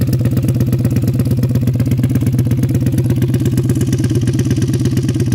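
Engine of a Cuervo 930 sand-drag quad idling steadily at warm-up after startup, with an even, fast pulse and no revving.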